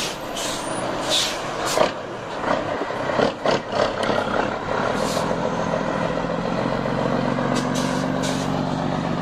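Scania 112 truck's diesel engine running, with several short hisses in the first half; from about halfway in, the engine settles into a steady, even note.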